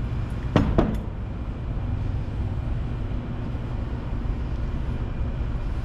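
Steady low background drone of workshop noise, with two short sharp clicks about half a second in.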